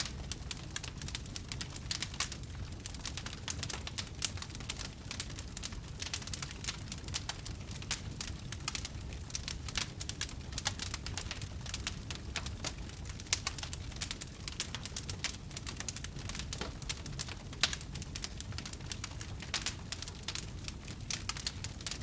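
Wood campfire crackling: dense, irregular pops and snaps over a steady low rumble, with a couple of louder snaps in the second half.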